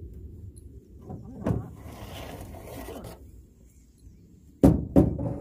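Rubbing and rustling with a short hiss in the middle, then two sharp knocks about half a second apart near the end.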